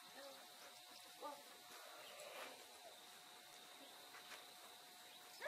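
Near silence: a faint steady background with a few soft, brief sounds, one slightly louder about a second in.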